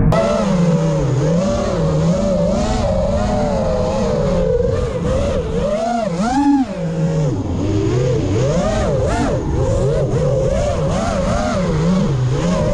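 FPV quadcopter's electric motors and propellers whining, the pitch rising and falling constantly with the throttle. Near the middle there is a sharp climb in pitch, then a brief drop as the throttle is cut.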